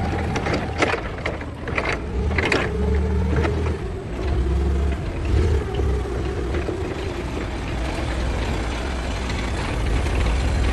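Forklift engine running steadily, with several sharp clanks in the first three seconds and a faint steady whine through the middle.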